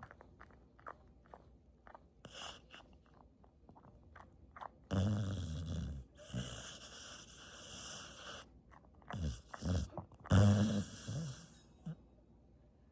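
Golden retriever snoring in its sleep: faint clicks at first, then two loud snores about five and ten seconds in, with noisy breathing between them.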